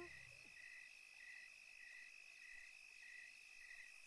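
Faint cricket chirping at an even pace, about one and a half chirps a second, over a faint steady high insect drone.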